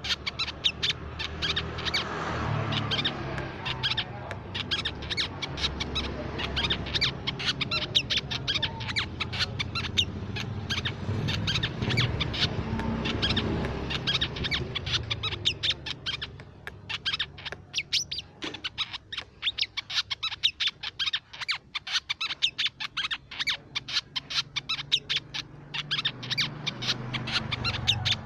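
Crimson sunbird calling: a rapid stream of sharp, high-pitched chips and twitters, several a second. A low background rumble sits under the calls through the first half and again near the end.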